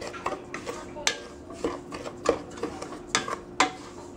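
Wooden spatula stirring semolina roasting in a stainless steel pot, with irregular scrapes and knocks against the pot's sides and base.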